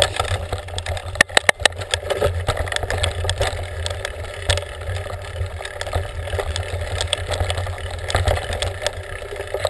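Mountain bike ridden over a rough grassy dirt trail, picked up by a camera on the handlebar: a steady low rumble with frequent clicks and rattles from the bike, and a few sharper knocks about a second and a half in.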